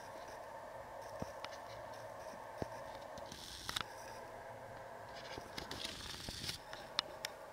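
Faint rustling and scraping of pine twigs and needles with a few sharp clicks, as a common wood pigeon shifts about on its nest-building site in the branches; the rustling comes in two short spells over a steady faint background hum.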